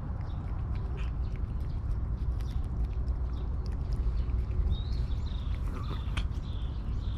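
Cat licking a paste treat from a squeeze tube held right at the microphone: soft, irregular wet licking clicks over a steady low rumble.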